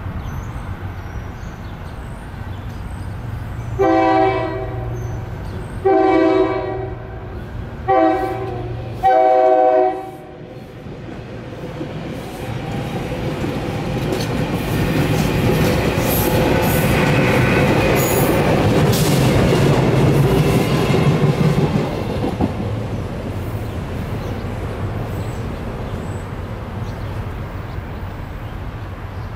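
Train horn sounding the grade-crossing signal: long, long, short, long. Then a SEPTA Regional Rail electric multiple-unit train passes over the crossing, its rumble swelling and fading away.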